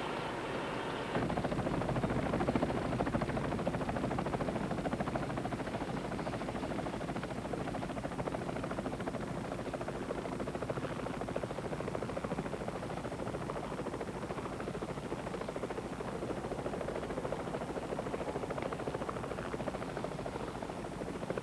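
Steady engine and road noise of a moving fire truck, heard from inside the cab. It gets louder about a second in.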